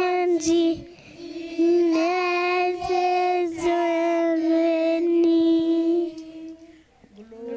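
A group of children singing together, unaccompanied, in long held notes on a single melody line. The singing breaks off briefly near the end and then starts again.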